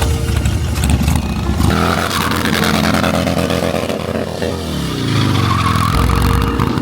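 Motorcycle engine running hard under throttle. Its pitch drops a little past the middle and then holds lower.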